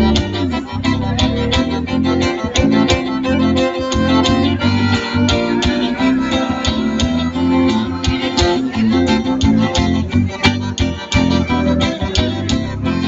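Live forró estilizado band playing loudly through a PA system, with guitar and drums over a steady beat.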